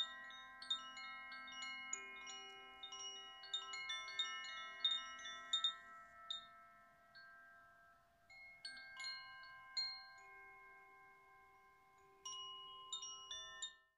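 Tinkling chimes: many bell tones struck irregularly and left ringing over one another. They die down about eight seconds in, swell again near the end and cut off suddenly.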